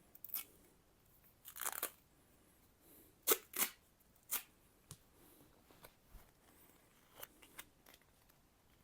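Adhesive tape being peeled off a knife blade in a few short tearing pulls over the first four and a half seconds, the longest about a second and a half in, followed by faint clicks of handling.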